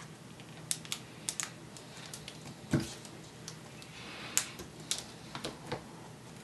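Light, irregular clicks and taps of a laptop LCD panel and its display cable being handled against the plastic display lid, with a duller knock a little under three seconds in.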